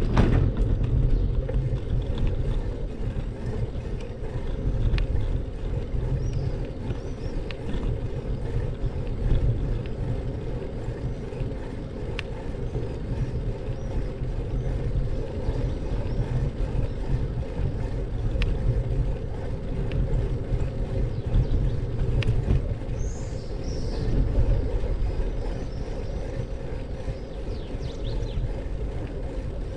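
Steady low rumble of a vehicle driving along a street, heard as road and wind noise on an outside-mounted camera's microphone. A few sharp ticks, and some brief high chirps in the later part.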